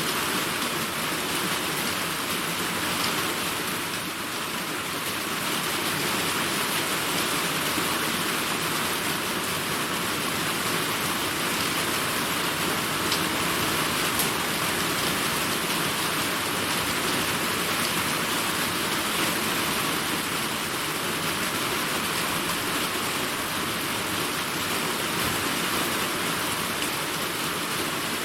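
Summer rainstorm: steady, heavy rain hissing down, with a few louder single drops standing out. No thunder.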